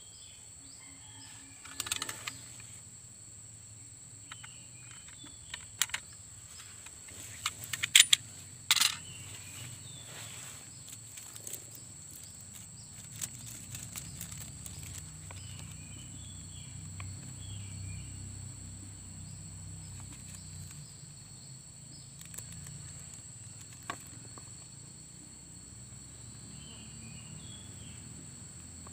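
Outdoor ambience dominated by a steady high-pitched insect drone, with faint scattered chirps and a low rumble that swells in the middle. Several sharp knocks stand out, the loudest a cluster about eight seconds in.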